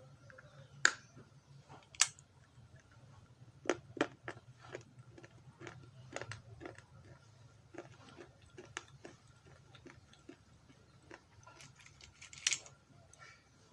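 A person biting into and chewing fresh fruit: sharp crunching snaps about one and two seconds in, then irregular chewing crunches, with another loud bite near the end.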